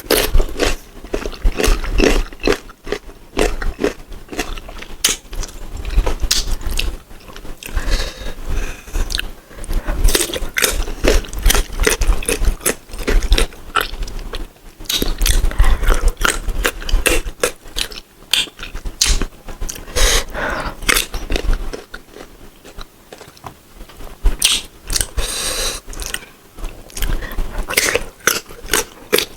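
Sour green mango being bitten and chewed, a dense run of crisp crunches that eases off briefly about three quarters of the way through.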